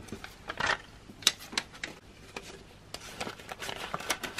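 Paper banknotes handled on a wooden tabletop and slid into a clear plastic cash envelope: a string of soft rustles and small taps, busiest near the end.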